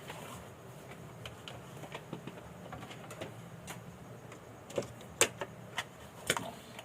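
Scattered small clicks and taps of handling parts and tools on a workbench, a few sharper ones in the second half, over a faint steady hum.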